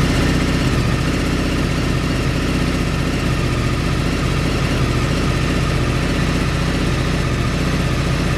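Sport motorcycle engine idling steadily through an aftermarket exhaust, at an even pitch that does not rise or fall.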